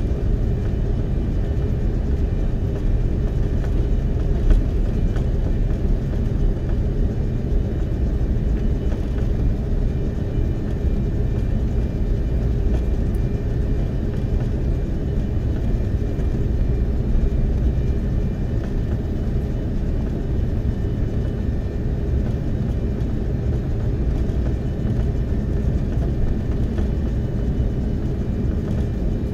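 Steady low rumble inside the cabin of an Airbus A330-300 airliner, from its jet engines and the moving airframe, with one brief knock about four and a half seconds in.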